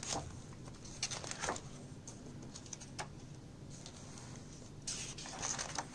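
Pages of a spiral-bound book being turned and handled: papery rustles and flicks in short bursts, a cluster about a second in and a longer rustle near the end.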